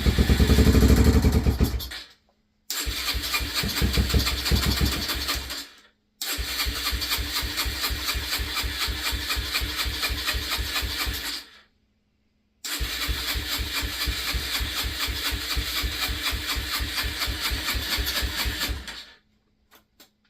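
Yamaha TTR125's single-cylinder four-stroke engine being started after a crank rebuild, heard in four bursts of fast, even firing that each cut off abruptly; the first, at the start, is the loudest. It will not keep running: the gas tank holds water instead of fuel.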